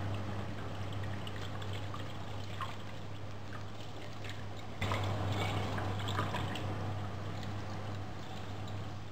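Tap water running in a thin stream onto a raw whole chicken in a stainless steel sink, with wet splashing and small clicks as hands rub and turn the bird; the splashing gets louder about five seconds in. A steady low hum sits underneath.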